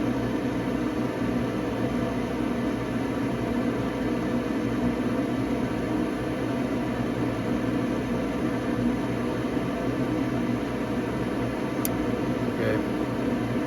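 Nordyne gas furnace's draft inducer motor running with a steady hum and whir during the start-up sequence, before the burners light. One short click about twelve seconds in.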